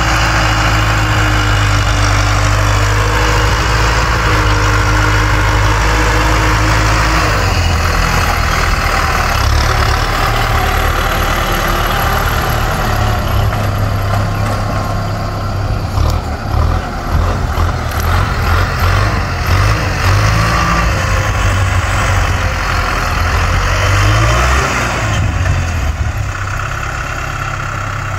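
Farm tractor engine running under load as it pulls a disc plough through dry soil, a continuous loud engine sound that wavers in level from about halfway through.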